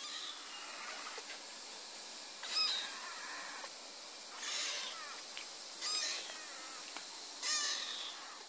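Young kitten meowing, about five short high-pitched meows spaced a second or two apart.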